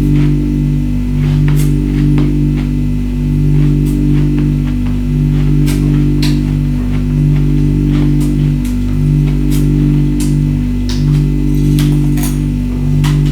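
Background music with a repeating low bass pattern, over sharp, irregular crunches of ice being bitten and chewed.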